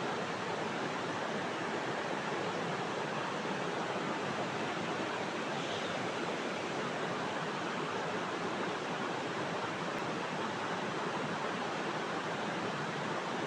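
River water rushing steadily past.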